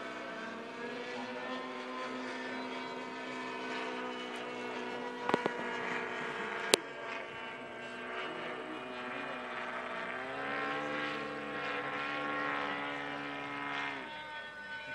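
Small glow-fuel engines of radio-controlled model airplanes droning overhead, several pitches at once. About ten seconds in, one engine climbs in pitch and holds there before dropping off near the end. Two sharp clicks come about five and seven seconds in.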